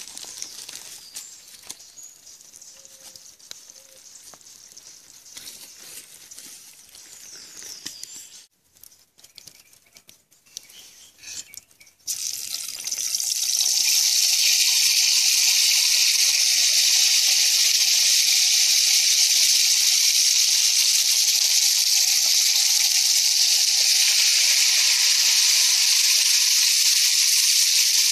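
Pieces of pig's trotter frying in hot oil in a pan: a loud, steady sizzle that starts abruptly about twelve seconds in. Before it there are only faint scattered clicks and rustles.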